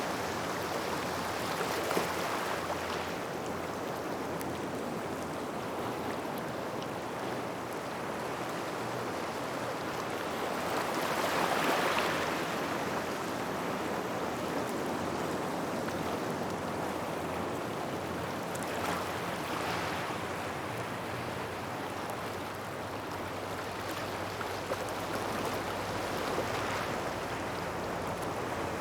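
Small waves washing in and out over a gravel beach in a continuous rushing wash. The surges rise and fall every few seconds, with the largest about twelve seconds in.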